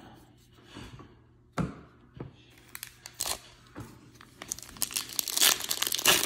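A few soft clicks of cards being handled. Then, from about four and a half seconds in, the foil wrapper of a baseball card pack being torn open and crinkled.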